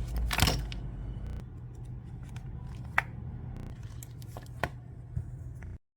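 Handling noise from a paper flip book: a brief rustle of paper about half a second in, then a few sharp clicks over a low steady hum. The sound cuts off suddenly shortly before the end.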